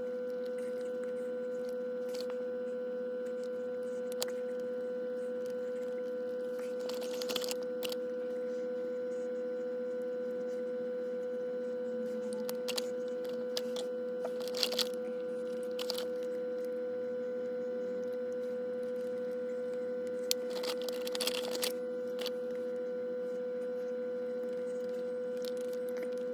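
A steady hum holding one unchanging tone, with short bursts of crackling and crunching about seven, fifteen and twenty-one seconds in.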